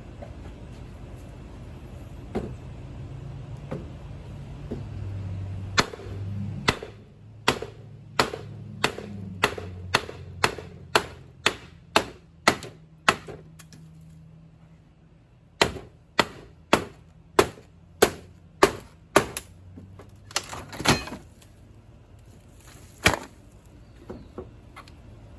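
A hammer striking repeatedly, about two blows a second, in two steady runs with a pause between, then a few single blows near the end.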